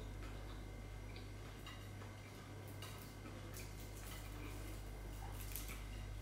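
Faint, scattered small clicks and crackles of eating by hand: fingers picking at fried fish and rice on a plate, and chewing, over a steady low hum.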